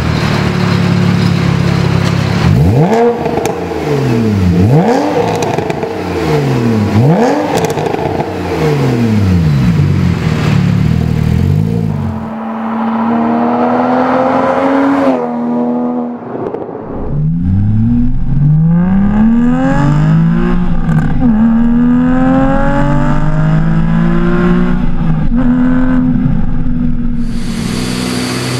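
Porsche 911 Carrera S (991) 3.8-litre naturally aspirated flat-six through an aFe cat-back exhaust with straight-through race mufflers. It idles, then is blipped several times, the note rising and falling. Later it accelerates hard through the gears: long climbing sweeps, each cut off by a shift and starting again lower.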